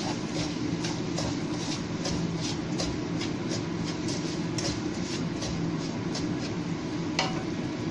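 Wooden spatula scraping and stirring brown sugar through coconut milk in a skillet, in quick strokes about twice a second with a sharper scrape near the end, over a steady low hum.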